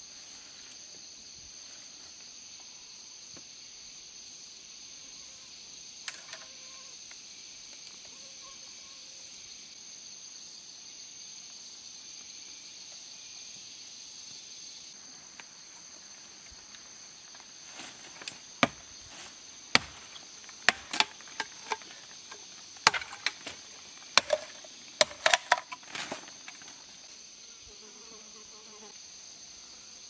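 Steady high-pitched drone of insects in the forest. For several seconds in the second half, a run of about a dozen loud, sharp knocks and clicks at irregular spacing stands out above it, some with a short ring.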